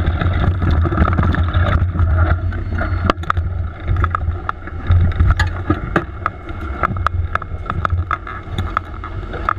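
Speedway motorcycle engine running at low revs as a steady low drone, with irregular sharp clicks from about three seconds in.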